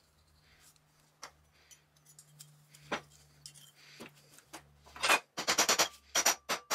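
Rapid, even metal-on-metal taps with a slight ring, about five a second, starting about five seconds in: the steel sleeve being tapped to drive an SKF Speedy Sleeve onto the PTO gearbox shaft. Before them come a few faint clicks of metal parts being handled, over a low steady hum.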